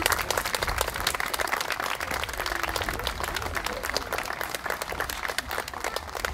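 Crowd of wedding guests applauding: many hands clapping together in a steady, even patter.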